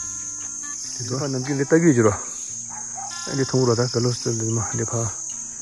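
Steady high-pitched chirring of insects running throughout. A person's voice comes over it twice, briefly.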